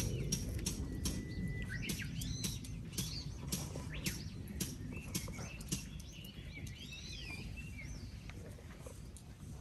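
Several small birds chirping and calling, with quick high chirps, rising and falling whistles and a held whistle note about a second in. Under them runs a low rumble that slowly fades.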